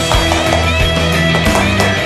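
Background rock music with electric guitar over a steady drum beat.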